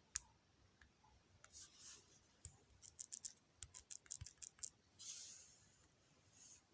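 Faint fingertip taps and clicks on a phone's touchscreen: a quick run of about a dozen clicks near the middle, with short scratchy rubs before and after.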